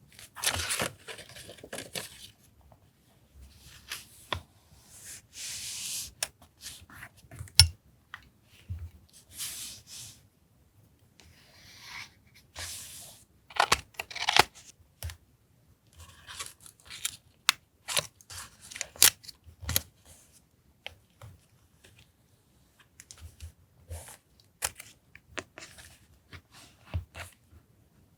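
Paper being torn in several short strips during the first half. After that come many short, crisp clicks from the handling of paper and stationery.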